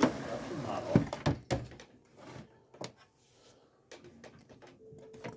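Knocks and clicks as parts of an instrument cluster are handled and set down, with two sharper knocks in the first second or so and scattered lighter clicks after, and a faint steady hum for about a second near the end.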